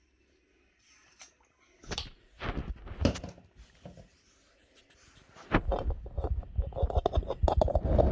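Knocks and clatter of things being handled: a few separate knocks after a near-silent start, then a dense, continuous clattering from about halfway.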